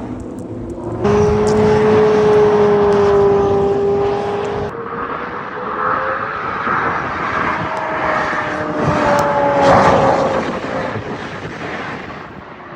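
High-performance car engine running hard, a steady pitched note held for a few seconds. It changes abruptly about a second in and again near five seconds, then a note slowly rises and fades near the end.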